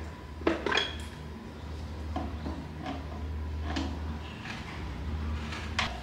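Metal tools and engine parts clinking and knocking against each other. A loud clatter comes about half a second in, then scattered lighter clinks follow over a steady low hum.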